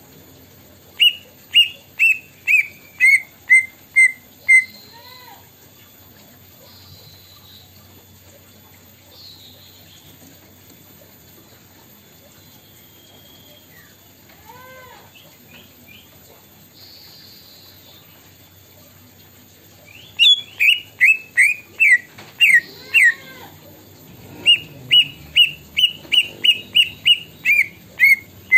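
Caged cucak ijo (green leafbird) mimicking the plaintive cuckoo's (kedasih) song: runs of loud, clear whistled notes, each stepping down in pitch. One run comes about a second in, another about twenty seconds in, and a faster, longer run near the end.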